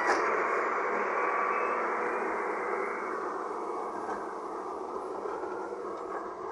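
Wheel loader working on a murram road, a steady noisy rumble of machinery and earth that slowly fades, with a sharp click right at the start.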